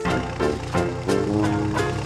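Upbeat background music with a steady beat of about three strokes a second; a new tune starts right at the beginning.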